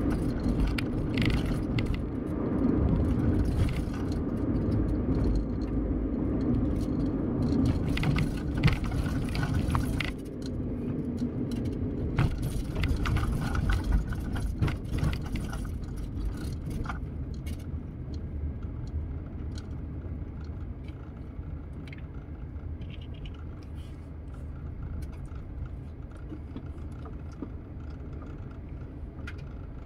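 Car cabin noise while driving: a steady low road and engine rumble with frequent small clicks and rattles from the interior. The rumble grows quieter through the second half.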